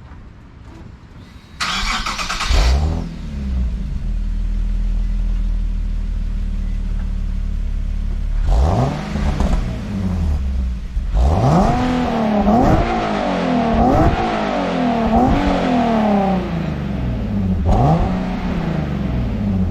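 Nissan 370Z's 3.7-litre V6 on its stock exhaust starting up warm about two seconds in and settling to idle, then blipped: one rev, a quick run of about five revs, and a last rev near the end.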